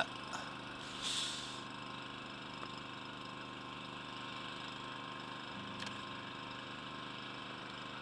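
Microwave oven running on full power with a steady hum, while a sooty burning toothpick inside it sheds balls of plasma. A brief hiss comes about a second in, and a faint click near six seconds.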